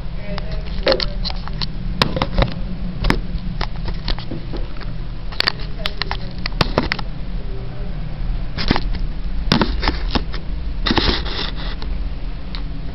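Handling noise from a small camera being moved about and set down: a string of clicks and knocks over a steady low hum.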